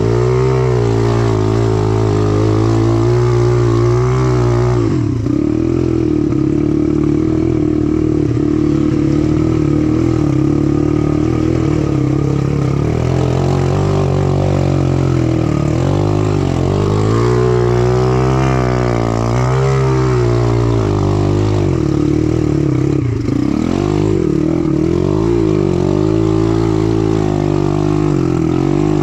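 MRF 140RC pit bike's four-stroke 140 cc single-cylinder engine running under load through mud, the revs rising and falling repeatedly as the throttle is opened and closed.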